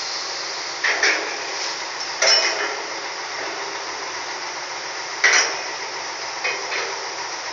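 Three sharp metallic clanks, with a fainter knock near the end, over a steady hiss of heavy port machinery.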